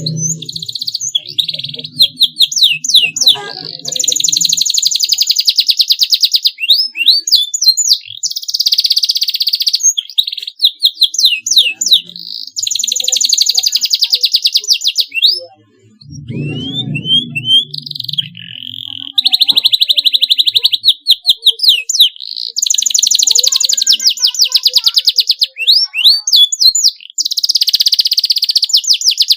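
Domestic canary singing: long rapid trills and rolls alternating with quick rising and falling whistled notes. Low music plays underneath in the first few seconds and again about halfway through.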